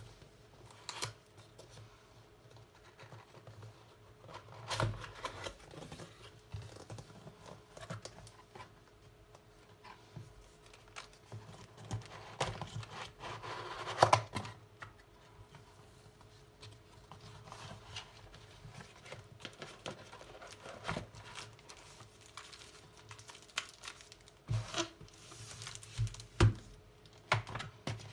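Handling of a mechanical keyboard and its packaging: scattered taps and knocks on the box and plastic, with rustling and crinkling of the wrapping around the middle that ends in the loudest knock, and several sharp knocks near the end.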